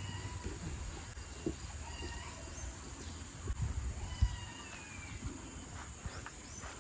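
Scattered short animal calls, brief chirps gliding up and down in pitch, with a few soft thumps.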